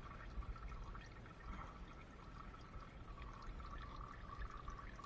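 Faint, steady pour of engine oil draining in a thin stream from the open drain plug of a 2015 Ford Escape's 1.6-litre engine.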